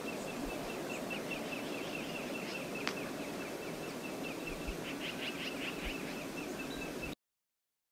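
Steady rush of river water with small birds chirping repeatedly over it, the chirps thickest about five seconds in, and a thin steady high tone throughout. A single sharp click about three seconds in; the sound cuts off suddenly near the end.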